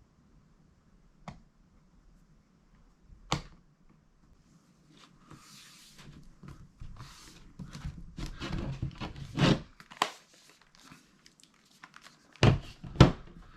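A laptop and small tools being handled on a table: a few sharp clicks, then scraping, rustling and light knocks as the screws go back into the bottom cover, and two loud knocks near the end as the laptop is set down.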